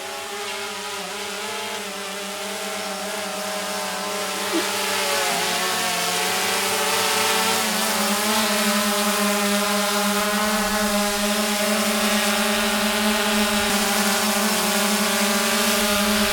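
ATV engine running at a steady speed, holding one even pitch and growing gradually louder over the first several seconds.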